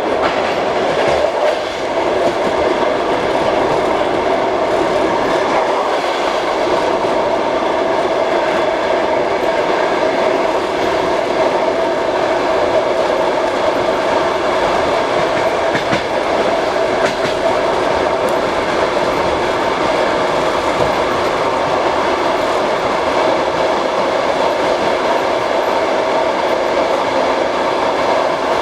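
Passenger train wheels clattering over the rails at running speed, with steady rolling noise, heard through an open compartment window.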